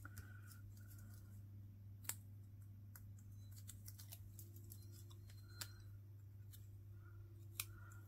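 Near silence over a steady low hum, broken by a few faint sharp clicks of paper and craft tools being handled on the desk.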